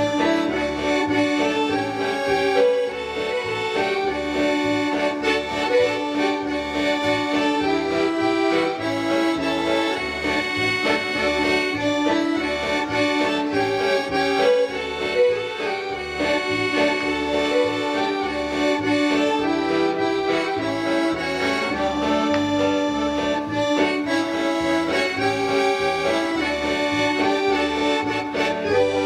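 Instrumental music with held chords over a steady, even bass beat.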